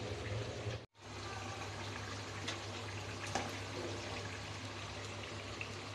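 Food sizzling as it fries in hot oil, with scattered small crackles over a steady low hum. The sound cuts out for a moment about a second in, then the sizzling goes on as pieces of beef cook in the pot.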